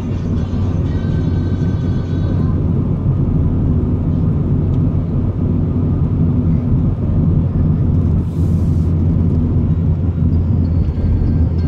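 Road and engine noise inside a moving car's cabin: a steady low drone with tyre rumble. A short faint hiss comes about eight seconds in.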